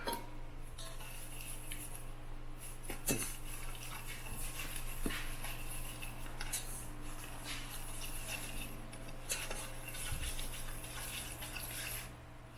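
Spoon stirring sugar into melted butter and milk in a bowl, scraping and clinking against the bowl's sides, with a sharper knock about three seconds in.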